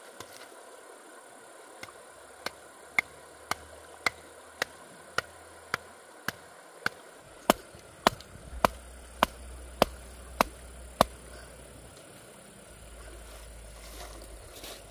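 A hand tool striking bamboo in a steady rhythm: sharp knocks about two a second, seventeen or so, growing louder about halfway through and stopping about eleven seconds in.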